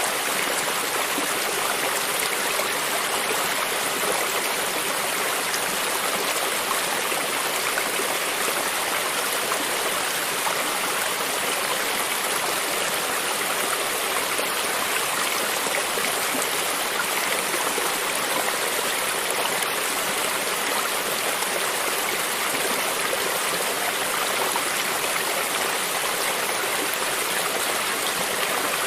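A creek's running water flowing and gurgling steadily over stones, an even rushing with no breaks or changes.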